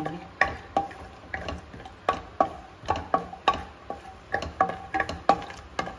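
Wooden spatula stirring peanuts roasting in oil in a nonstick kadhai. It knocks against the pan about three times a second, each knock with a short metallic ring.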